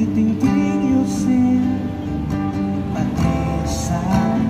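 Guitar music with strummed chords and held notes.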